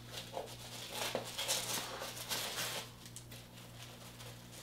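Tissue paper rustling and crinkling as it is handled and pulled away, in irregular bursts that are busiest from about one to three seconds in, then softer.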